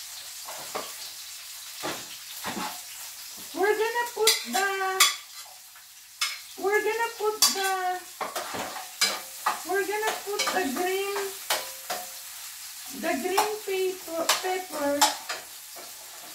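Garlic and onion sautéing in oil in a pan, stirred with a utensil that clicks and scrapes against the pan. Wavering pitched tones come in four stretches of a second or two each.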